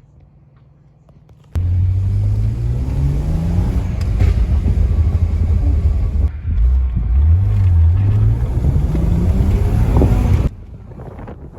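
Car engine accelerating hard, its pitch climbing, with a short dip about five seconds in like a gear change before it climbs again. It starts suddenly about a second and a half in and cuts off abruptly near the end.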